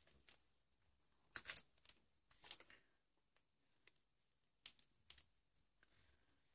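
Near silence broken by a handful of short, faint scratchy strokes: a small paintbrush working paint onto a paper collage page, with hand contact on the paper.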